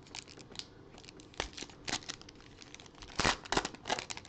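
Foil wrapper of a trading-card pack being torn open by hand and crinkling as the stack of cards is pulled out. It makes irregular crackles and rustles, loudest a little after three seconds in.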